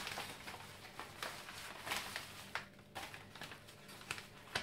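A white mailing envelope being handled and opened by hand: irregular rustling and crackling, with a few sharper crinkles as it is pulled open and the contents come out.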